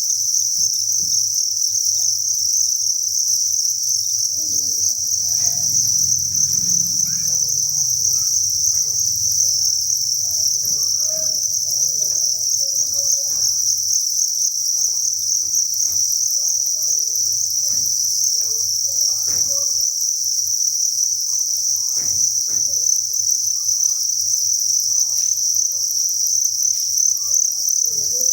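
Chorus of many farmed crickets chirping at once, merging into one continuous high-pitched trill that never pauses.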